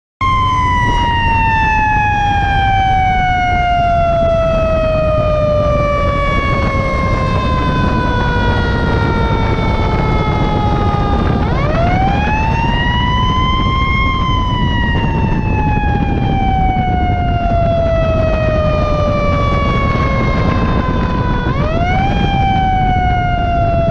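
Fire truck's mechanical siren winding down in a long, slowly falling wail. It is spun back up about halfway through and again near the end, falling each time, over a steady rumble of engine and road noise.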